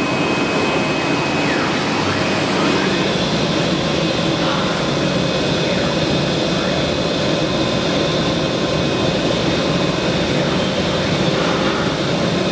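A 1325 CNC wood router running: steady loud machine noise with thin, steady, high-pitched tones from the spindle, one of which fades out about three seconds in.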